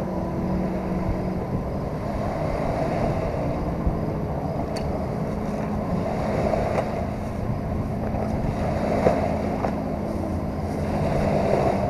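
Small waves washing onto a riverbank and wind on the microphone, over a steady low hum, with a few faint clicks of handling.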